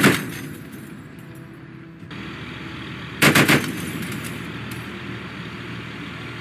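M2 Browning .50-calibre heavy machine gun firing from a vehicle mount: the end of one burst echoing away at the start, then a short burst of about four shots a little over three seconds in.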